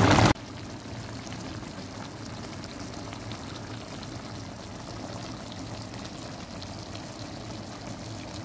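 Fish broth simmering gently in a wok: a steady, low, even hiss of bubbling liquid.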